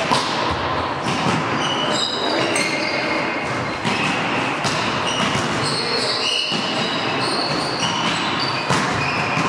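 Volleyball rally on a hardwood indoor court, opening with a jump serve: sharp hits of the ball and short high squeaks of shoes on the wooden floor, all echoing in the large sports hall.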